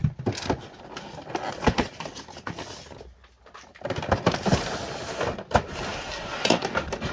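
A cardboard toy box being handled: repeated knocks and clicks with rustling and scraping of the packaging, pausing briefly about three seconds in.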